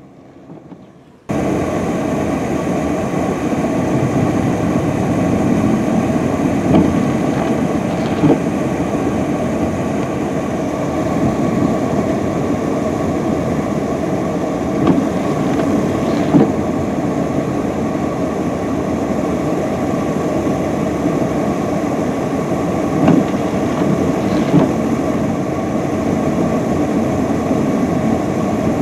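UPS package delivery truck's engine running under load as its rear wheels spin in deep snow, a steady drone that begins about a second in, with a few brief louder knocks along the way.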